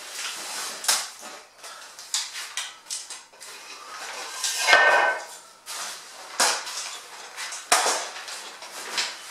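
Metal camp-cot frame poles knocking and clattering as they are handled and fitted into the fabric bed, with a longer scraping, faintly ringing rattle about five seconds in.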